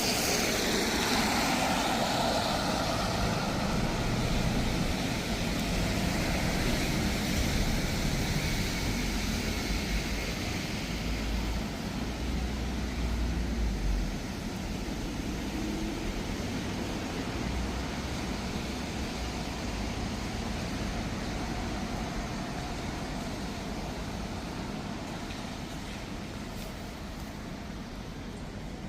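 Traffic passing on wet city streets: a steady rush of vehicles and tyres. It is loudest in the first half and eases off gradually after the middle.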